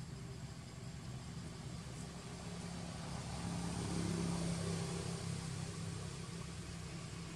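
A motor engine running steadily in the background as a low hum, growing louder about halfway through and then easing off again.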